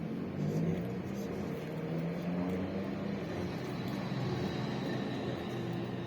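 A motor vehicle's engine running steadily, its pitch shifting slightly.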